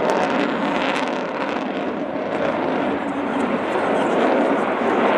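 Steady jet noise from the Avro Vulcan's four Rolls-Royce Olympus turbojets as the delta-wing bomber flies past in a banked turn.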